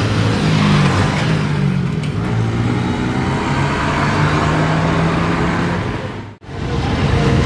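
Jet engines of a twin-engine Boeing 777 airliner at take-off thrust as it climbs out: a loud, steady rumble with low droning tones. About six seconds in, the sound dips sharply to almost nothing for a moment, then comes back.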